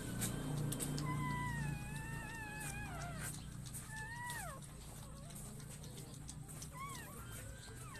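Newborn puppies crying in thin, high, wavering squeals. A long cry comes about a second in, a short falling one around the middle, and brief chirps near the end, over a low steady rumble.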